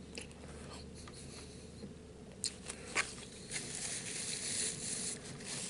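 Small handling sounds of someone eating a meal: faint scattered clicks and rustles. There are two sharper clicks about halfway through, then a couple of seconds of soft rustling.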